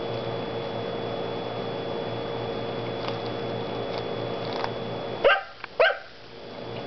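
Faint clicks of a dog nibbling corn kernels off the cob, then two sharp dog barks half a second apart about five seconds in.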